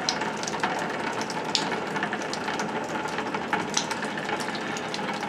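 Residual water hissing and spattering out of a drained copper water line as it is opened, with many small crackles and clicks.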